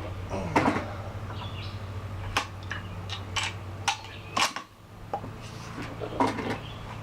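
About six short, sharp clicks spread unevenly over a steady low hum, the first one just after the start being the loudest.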